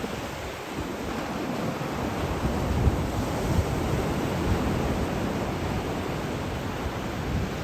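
Sea waves washing onto the shore of the Tsugaru Strait, a steady rush of surf, with some wind buffeting the microphone.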